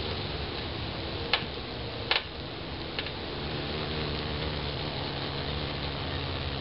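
A steady low mechanical hum, like a motor or engine running, that shifts slightly in pitch about halfway through, with a few sharp clicks in the first half.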